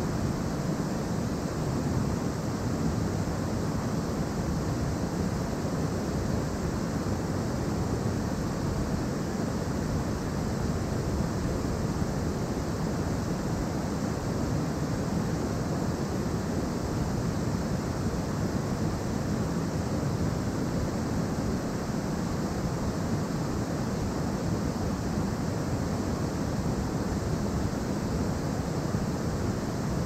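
Steady rush of a waterfall and mountain stream, an even noise that does not change.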